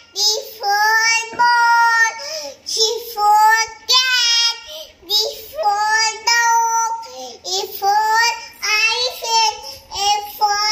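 A young girl singing in a high, sing-song voice: a run of held notes with short breaks between them.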